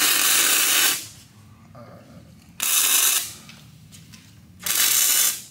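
Flux-core wire welder laying three short tack welds: three bursts of arc hiss, each under a second long, with short pauses between.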